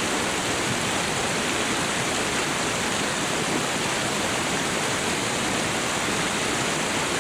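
River water flowing: a steady, even rush that does not change.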